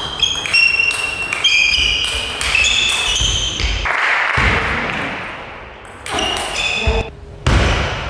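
Table tennis ball struck back and forth in a rally: sharp clicks off the bats and the table, each with a short, bright ping, about three a second, with a softer hiss in the middle before the hits start again.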